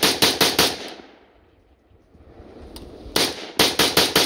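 Izhmash Saiga AK-pattern rifle in 5.56/.223 fired in quick semi-automatic strings, about five shots a second. One string ends about half a second in. A second string starts about three seconds in.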